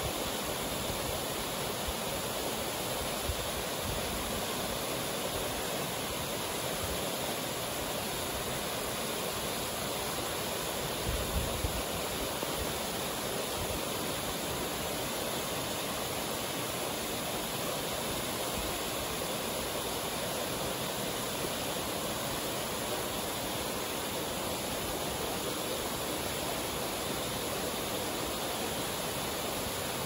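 Gyojataki Falls: water rushing over volcanic rock in a steady, even roar. A few brief low thumps come about eleven seconds in.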